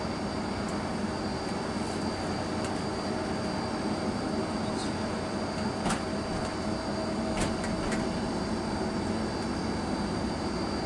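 Steady engine and road noise inside a moving vehicle's cabin, a low hum with a faint steady whine over it. A few light clicks or rattles sound around the middle.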